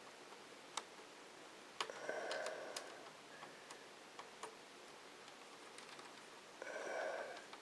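Small screwdriver driving screws into a Dell Inspiron 1420 laptop chassis: light scattered clicks of tool and screws on the metal, with two brief louder spells of the screw being turned, about two seconds in and near the end.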